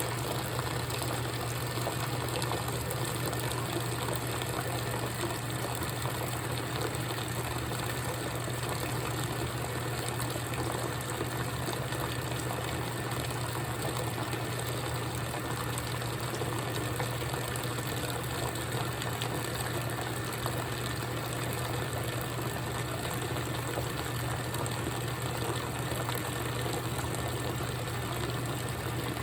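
GE top-load washing machine running mid-cycle: a steady motor hum with water noise, unchanging throughout.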